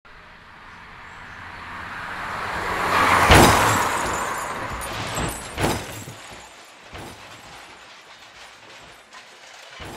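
Car crash sound effect: a rushing noise builds for about three seconds into one loud impact, with glass shattering. A few smaller crunches and knocks follow over the next several seconds as the car tumbles, fading away.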